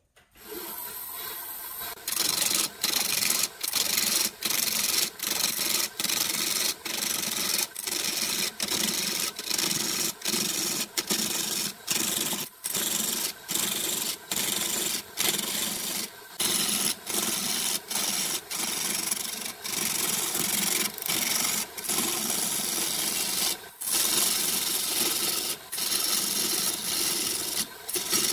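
Turning tool cutting a spinning segmented wood blank on a mini wood lathe, rounding it down. After the lathe runs up for the first couple of seconds, a loud scraping cut starts and is broken by short gaps every half second to a second as the tool is eased off and pushed back in.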